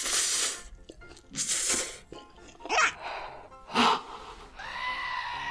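Instant noodles slurped in two loud, breathy pulls, then two sharp gasps from a mouth scalded by the hot noodles, over light background music. A held tone comes in near the end.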